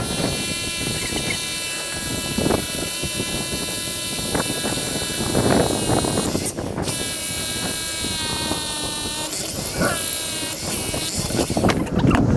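Bosch rotary hammer with a half-inch SDS bit drilling into a concrete foundation, a steady buzzing hammer drone. It pauses briefly about halfway through and stops near the end.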